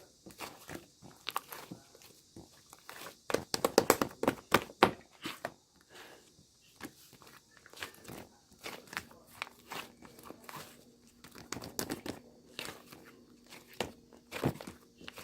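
Slime being squished and poked by hand, giving a run of small sticky clicks and crackly pops, densest about four seconds in.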